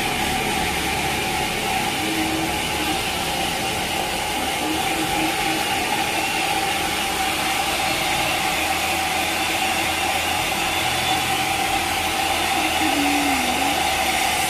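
A handheld hair dryer running steadily: a constant rush of blown air with a steady motor whine.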